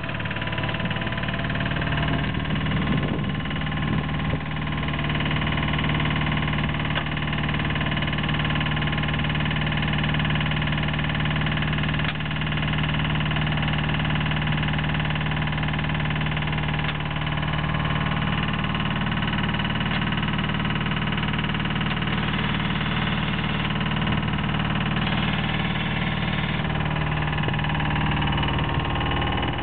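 Engine of a Flow Tex HDS13 horizontal drilling rig running steadily, with no revving.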